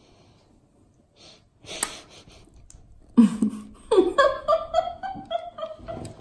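A woman laughing in a run of short pitched bursts, beginning about three seconds in after a short huff of breath.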